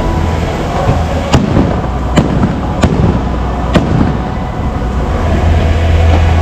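Fireworks going off: four sharp bangs, each less than a second apart, in the first four seconds.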